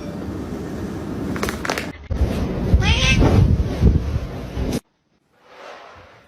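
A domestic cat meowing: a short call about three seconds in, over steady rumbling background noise that cuts off abruptly near the end.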